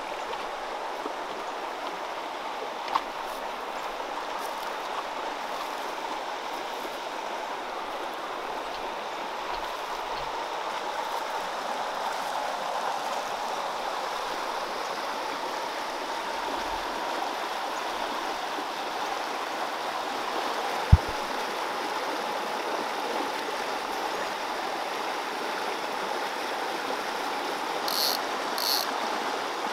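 Mountain stream running steadily over rocks and a small riffle. A single brief thump about two-thirds through, and two short high-pitched sounds near the end.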